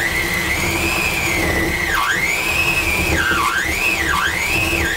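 Electric hand mixer running as it creams cold butter and sugar. Its motor whine wavers and dips sharply in pitch several times as the beaters bog down in the still-firm butter.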